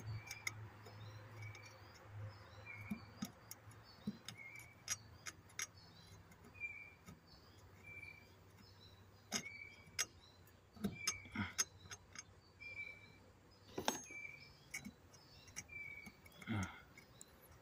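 A nail clicking and scraping against the metal gear teeth inside a lawnmower wheel as packed dirt is picked out. There are irregular sharp ticks, loudest around the middle and near the end, under a short bird chirp repeated about once a second.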